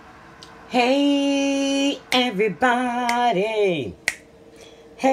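A voice singing a short tune: a long held note, a quick run of notes, then a note sliding down, with three finger snaps about a second apart.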